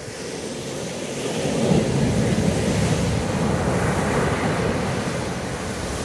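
Ocean surf breaking on a sandy beach and washing around boulders. The rush swells about a second and a half in, stays loudest for a couple of seconds, then eases, with a brief hissing splash near the end as a wave hits the rocks.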